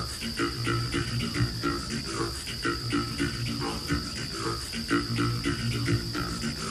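Crickets chirring with a steady high tone, over a low, rhythmic pulsing background.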